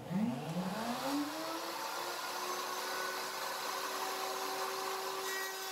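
Table-mounted router motor switched on under a 14-degree dovetail bit: its whine rises in pitch over about two seconds as it spins up, then runs steadily at full speed.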